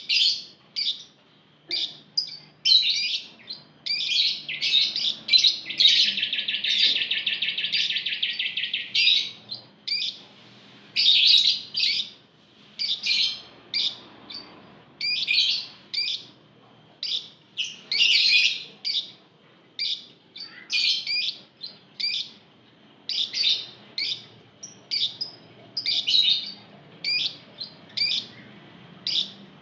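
Flock of Fischer's lovebirds calling: a quick run of short, sharp, high chirps. About six seconds in comes one long rattling trill of about three seconds, the lovebird's 'ngekek'.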